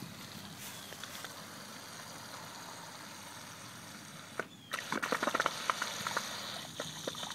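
Water from a garden hose running into an inflatable vinyl chameleon sprinkler as it fills. A steady quiet hiss turns louder about five seconds in, with a quick run of crackles.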